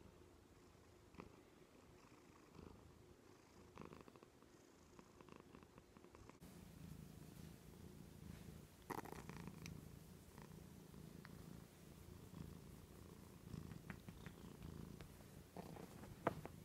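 Domestic cat purring, a faint steady low rumble that grows stronger about six seconds in, with a few faint clicks.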